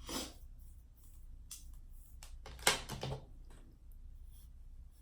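Brief rustling and handling noises, with a sharp knock or clatter a little past the middle, over a faint steady low hum.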